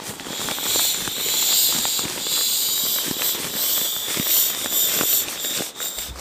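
Air hissing out of the open valve of an inflatable sleeping pad as it is rolled up and squeezed, with crinkling of the pad's nylon fabric under the hands.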